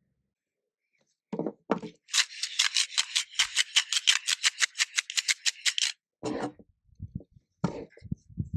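Beads of a children's counting abacus rattling and clacking in a fast, even run of about eight clicks a second for nearly four seconds, after two short low knocks. A few scattered knocks follow near the end.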